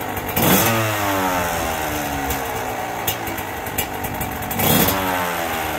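Dirt bike engine idling and blipped twice, about half a second in and again near the end. Each time the revs jump sharply, then fall back to idle.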